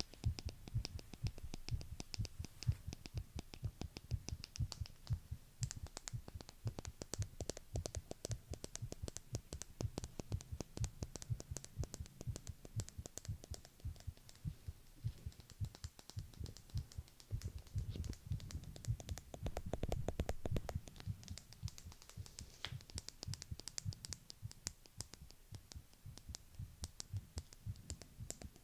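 Close-up heartbeat sounds: low thuds and rumble with a dense patter of fast, irregular clicks over them. The low rumble swells for a few seconds about two-thirds of the way through.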